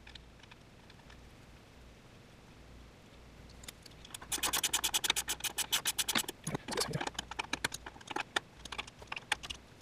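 Ratchet wrench clicking in rapid runs as it turns a nut onto the engine mounting stud at the transmission bell housing. The clicking starts about four seconds in, after a quiet stretch.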